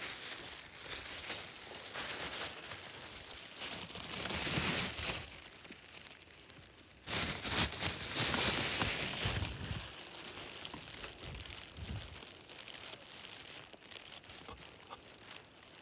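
Crinkling and rustling handling noise as a freshly caught loach is set firmly in its container. It swells about four seconds in and again, more loudly, from about seven to nine seconds.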